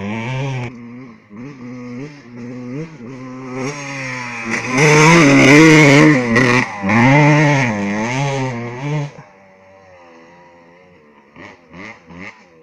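1992 Suzuki RM125's single-cylinder two-stroke engine revving up and down over and over as the dirt bike is ridden through very soft sand, loudest midway as it climbs a sandy slope. It falls away after about nine seconds, leaving a faint engine sound, with a few short knocks near the end.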